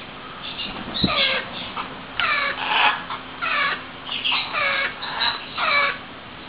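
Hand-fed baby parrots giving a series of short calls, about one or two a second, with a single low thump about a second in.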